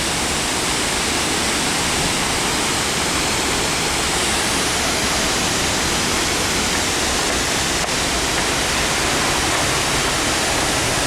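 Looking Glass Falls, a waterfall, rushing: a steady, loud, unbroken roar of falling water.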